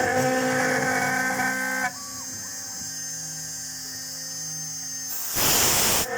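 Homemade CNC milling machine running in aluminium: a steady machine whine with several tones drops to a quieter hum just under two seconds in, with two brief high tones soon after. Near the end comes a loud burst of noise lasting under a second.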